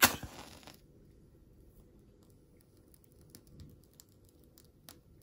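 A wooden match struck and flaring into flame: a sudden scrape and hiss that fades within a second. After that, only faint small clicks and taps.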